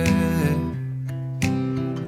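Background pop song: strummed acoustic guitar over steady bass notes, with a sung note trailing off about half a second in.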